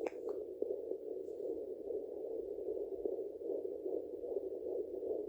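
Handheld fetal doppler switched on with a click, then a steady, muffled static hiss from its speaker as the probe rests low on the abdomen searching for a fetal heartbeat.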